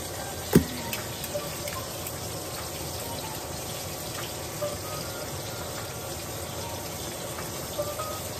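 Ribeye steak sizzling steadily in a hot frying pan, with one sharp knock about half a second in.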